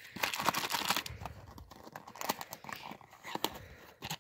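Crinkly plastic candy packaging rustling and crackling in the hands as it is pulled out and handled, with a few sharper crackles along the way.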